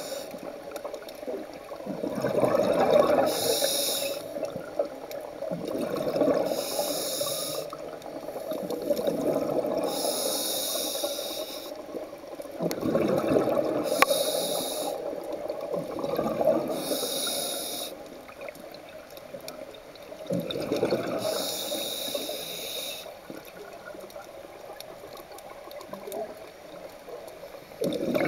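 Scuba diver breathing through a regulator underwater: a short hiss of inhaled air through the demand valve every three to four seconds, each followed by a longer rush of exhaled bubbles. The breaths come more slowly in the last few seconds.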